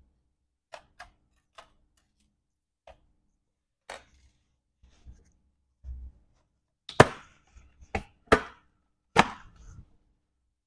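The aluminium bottom case of a MacBook Pro 16-inch (A2141) is worked free of its clips and lifted off, giving four loud, sharp snaps in the second half. Before that come a few light clicks and taps as small parts are handled.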